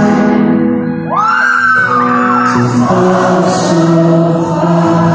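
Live pop-rock band playing with a male lead vocal, heard through a large arena's sound system from among the audience, with whoops from the crowd. A high rising vocal line comes in about a second in.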